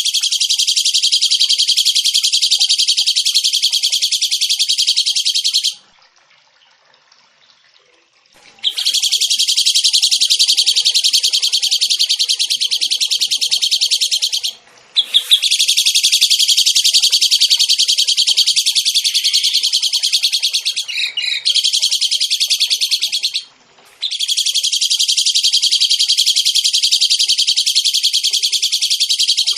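Songbird giving long, very fast rolling trills in four stretches of several seconds each. The trills break off for about three seconds after the first stretch, and briefly twice more.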